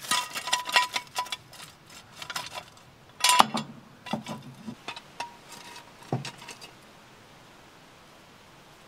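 Steel ratcheting jack stand being set under a camper's frame: a run of metallic clinks and rattles, with a few clanks that ring briefly, the loudest about three and a half seconds in.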